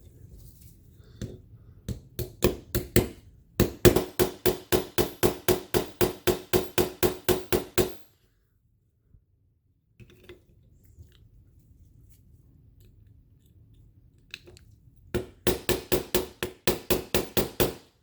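Small hammer tapping the trigger pin and locking block pin back into a CZ P10 F pistol's frame. The light, ringing taps come in quick, even runs of about four or five a second: a long run in the first half and a shorter one near the end, with a pause between.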